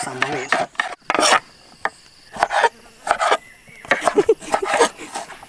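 Large kitchen knife chopping ripe jackfruit bulbs into thin strips on a wooden cutting board: a run of irregular sharp chops, the blade knocking through the soft flesh onto the wood.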